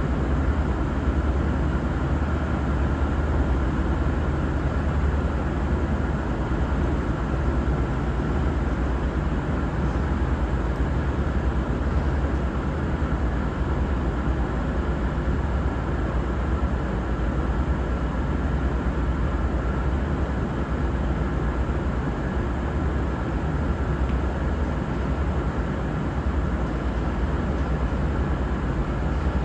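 Steady low rumble of idling diesel trains, with a faint steady whine above it.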